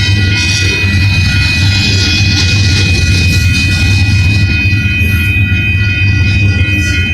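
Empty coal train cars rolling past at a grade crossing: a steady, loud rumble with wheel-on-rail noise. A railroad crossing bell rings steadily over it.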